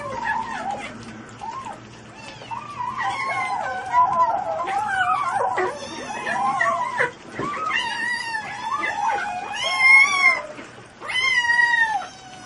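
A litter of kittens mewing and whining all at once as they feed: many overlapping high-pitched calls that waver up and down in pitch, loudest about ten seconds in.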